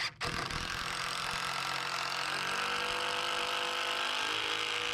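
Power drill-driver running steadily under load, driving a long GRK self-tapping structural screw into timber.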